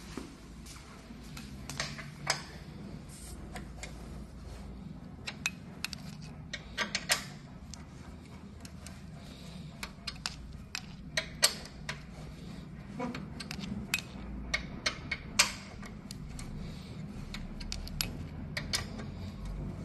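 Metal hex key clicking and clinking in the screw heads and against the treadmill's steel frame as the upright's screws are turned by hand: irregular sharp clicks, a few of them much louder, over a low steady hum.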